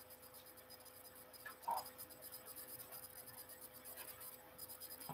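Quiet room tone: a faint steady hum and hiss, with one brief soft sound about a second and a half in.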